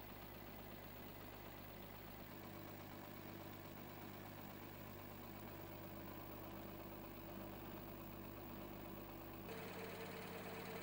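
Steady low mechanical hum with a few faint steady tones, shifting slightly about two seconds in and again near the end.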